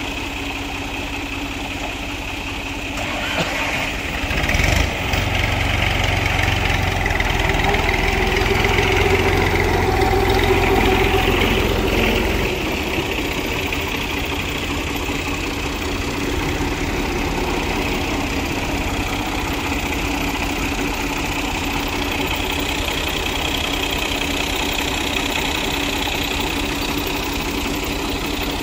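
Farm tractor diesel engine idling steadily. It grows louder and heavier for several seconds, starting about three seconds in, then settles back to an even idle.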